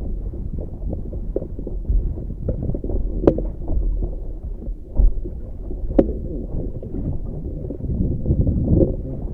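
Wind buffeting the microphone and water splashing along the hull of a Tiwal 3 inflatable sailing dinghy under way, a steady low rumble. Two sharp knocks stand out, about three and six seconds in.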